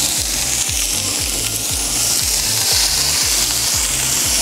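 Meat skewers sizzling on a hot Cadac Grillo Chef 2 gas grill: a steady hiss throughout, over background music with a steady low beat.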